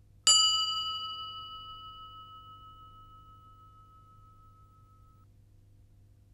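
A single bell ding, struck once about a quarter second in and ringing out over about five seconds. It is the lesson's cue bell in the question-and-answer exercise.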